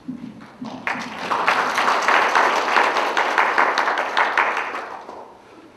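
Audience applauding: many hands clapping at once, swelling about a second in and dying away near the end.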